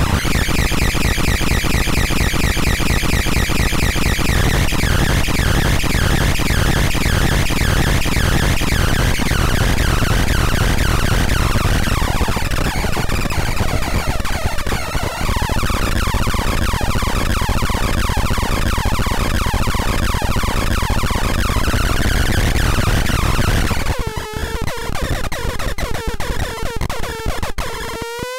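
Micro Noise Synth #8, a palm-sized noise synthesizer, putting out a dense, washy stream of noise with shifting pitched tones as its sample button is held and its knob is turned. About four seconds from the end it turns quieter and choppy, breaking into stuttering fragments with rising glides.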